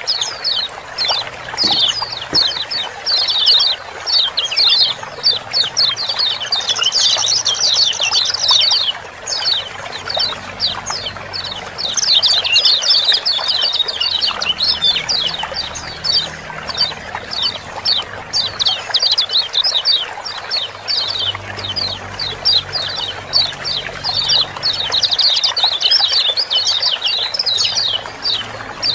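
Lemon-bellied white-eyes (kecial kuning) giving a busy chorus of rapid, overlapping 'ciak-ciak' chirps, short high notes that sweep downward, over a steady background of running water.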